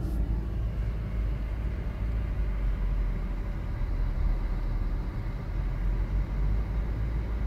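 Road noise heard inside a moving car's cabin: a steady low rumble of engine and tyres.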